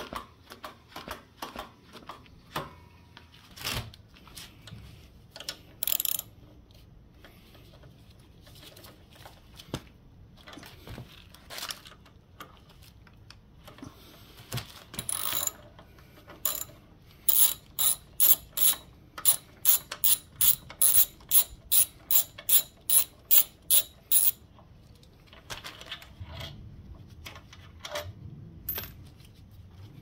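Socket ratchet wrench working a front brake caliper bolt: an even run of sharp clicks, about two a second, for some seven seconds past the middle. Before it come scattered clicks and knocks of tools and parts being handled.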